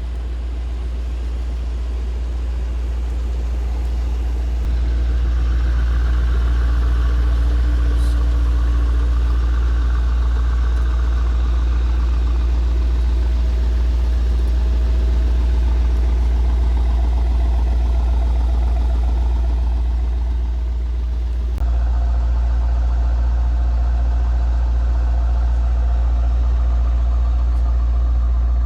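Mercedes-AMG GT 63 4-door coupé's twin-turbo V8 exhaust idling with a deep, steady note. It gets louder about five seconds in and changes abruptly about twenty-two seconds in.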